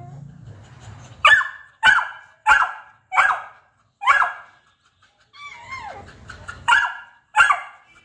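Beagle barking with its muzzle raised: a run of sharp barks about every half-second to second, broken about two-thirds of the way through by a short yowl that falls in pitch.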